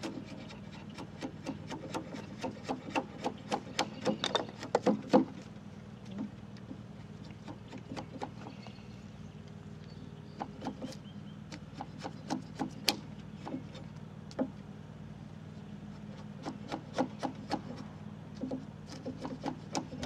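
Timber-framing slick pushed by hand through a wooden rafter, paring the tongue of a bridle joint: a run of short, sharp crackles and ticks as wood fibres split and shavings come off. The cuts come thick in the first five seconds, thin out through the middle and pick up again near the end, over a steady low hum.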